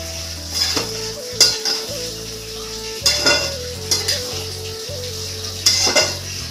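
Metal spatula scraping and clinking against an aluminium kadhai while mutton pieces are stirred and fried over a steady sizzle. The scrapes come about once a second, some in quick pairs.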